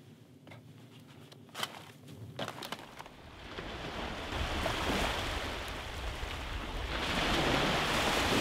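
Small waves breaking and washing up a sandy beach, building from about three seconds in and swelling twice. Before that there is a quiet stretch with a few faint knocks.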